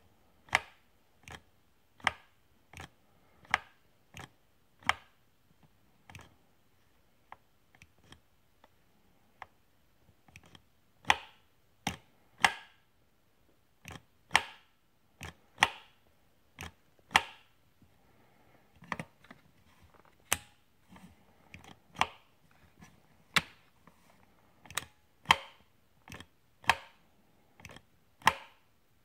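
Sharp mechanical clicks from the throttle linkage on a Husqvarna 346XP chainsaw's Zama C1Q carburetor being worked by hand, engine not running. Somewhat more than one click a second, often in quick pairs, some much louder than others.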